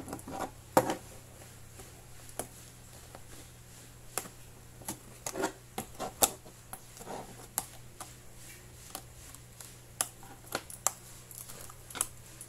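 Clear plastic blister packaging being handled and pried open by hand: irregular clicks, crackles and rustles of stiff plastic against the cardboard backing card.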